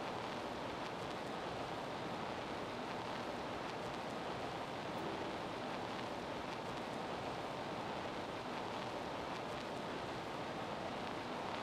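Steady, even rushing noise with no distinct sounds standing out and no change in level.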